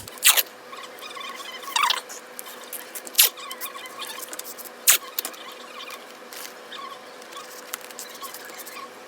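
Adhesive tape being pulled off its roll and pressed onto a laptop's glass Touch Bar strip: scattered sharp clicks and short squeaks, the louder ones a second or so apart. The tape holds the glass together so it does not shatter when pried off.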